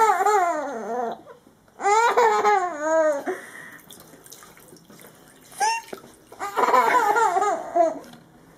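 Four-month-old baby laughing in high, wavering squeals: three long bursts, with a short one just before the last.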